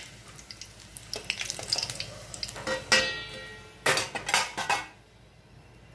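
A stainless-steel slotted spoon scrapes and clinks in a steel kadai of frying oil as a fried kachori is lifted out, over faint sizzling. About three seconds in there is a ringing metal clank as the spoon and kachori are set down on a steel plate, followed by a few more clanks.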